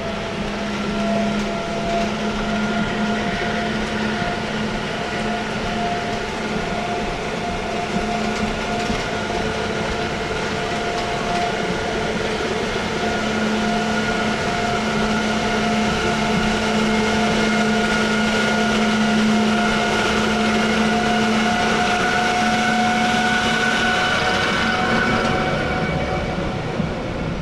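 Suspended looping roller coaster train being hauled up its chain lift hill: a steady mechanical hum and rattle from the lift, growing a little louder near the top.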